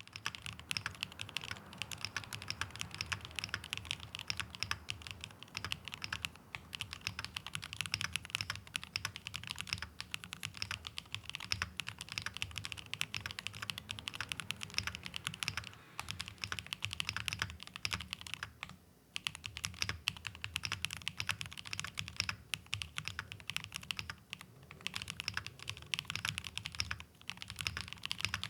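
Continuous fast typing on a mechanical keyboard fitted with KeyTok's Godzilla-themed keycaps, a dense run of key clicks that pauses briefly twice in the second half.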